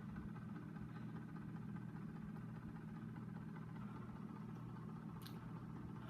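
Steady low electrical hum, as of an oven's motor or transformer running, with one faint tick about five seconds in.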